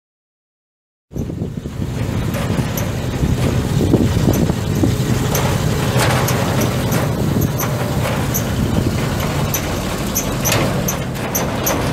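1968 Chevrolet 50 grain truck's eight-cylinder gas engine running steadily, the sound cutting in abruptly about a second in.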